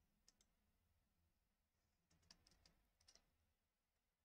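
Near silence: room tone with a few faint clicks as a computer is worked, a pair near the start and a handful between about two and three seconds in.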